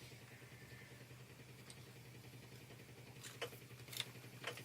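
Near silence: a low steady hum, with three faint light clicks in the second half.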